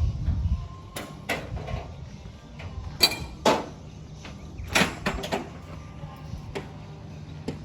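Irregular knocks and bangs, about a dozen, the loudest about three seconds in, over a steady low hum.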